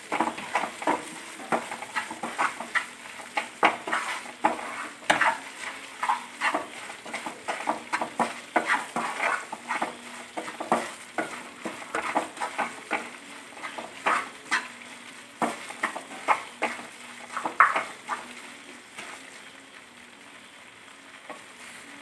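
Black spatula stirring and scraping thick masala paste frying in oil in a non-stick kadai, over a low sizzle. The strokes come quick and uneven and thin out near the end.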